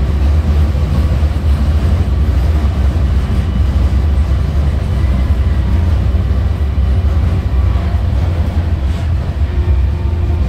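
An M31 tram running along the track, heard from inside the car: a steady low rumble with a few faint steady tones above it.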